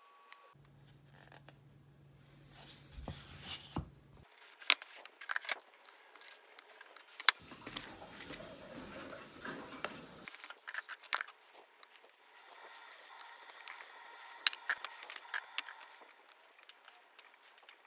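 Light clicks, taps and scrapes of food being packed into a wooden bento box: a plastic rice paddle pressing and scraping rice, then chopsticks and a fork clicking as the side dishes go in. A low hum sits under the first few seconds.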